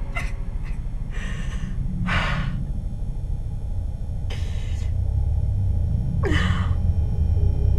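A woman gasping and breathing hard: four short, sharp breaths a second or two apart, the last a falling gasp. Under them runs a low, steady rumble that swells toward the end.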